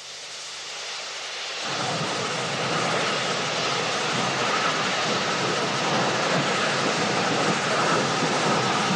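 Steam locomotive sound in a shed yard: a steady hiss of steam that fades in over the first two seconds and then holds level.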